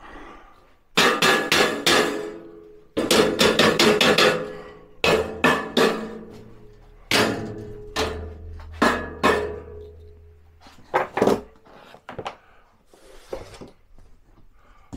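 Black steel boltless shelving unit being knocked into place: two quick runs of sharp, ringing metallic knocks, several a second, then single knocks further apart.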